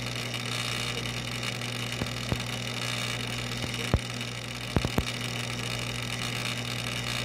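Steady low hum and hiss of running aquarium equipment, with a few sharp clicks in the middle, the loudest about four seconds in.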